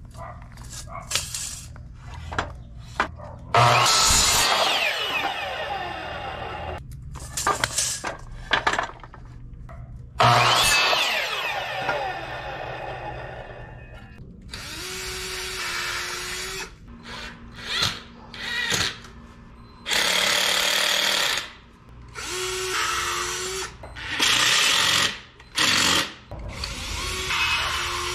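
Ryobi miter saw cutting wooden boards twice, each cut loud and ending with the blade spinning down in a falling whine; then a cordless drill driving screws into a wooden frame in several short bursts, steady in pitch.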